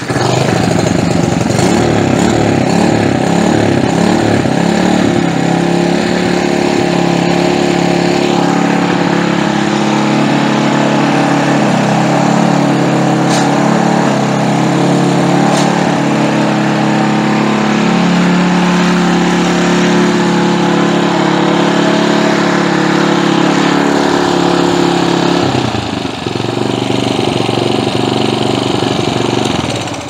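The small single-cylinder engine of an Earthquake Versa tiller is pull-started on full choke and full throttle and catches at once, then runs steadily and loudly; it is the first start after long storage and a carburetor clean, and it runs well. About 25 seconds in its note changes, and it cuts off at the end.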